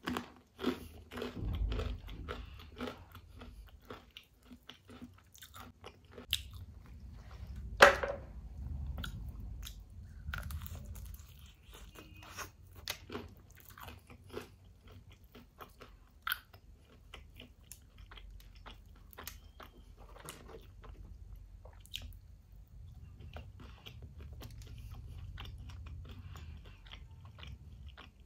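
A person biting and chewing crispy fried chicken: repeated crunching of the breaded coating and chewing, with one louder sharp crunch about eight seconds in.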